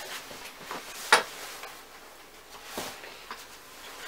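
Handling noise from a travel cot's fabric bassinet insert and its metal support rods being lifted and moved: soft fabric rustling with a few light clicks, one sharp click about a second in.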